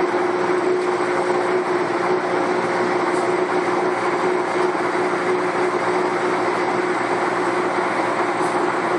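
Air handling unit running: a steady rush of moving air and machinery with a constant hum tone, unchanging throughout.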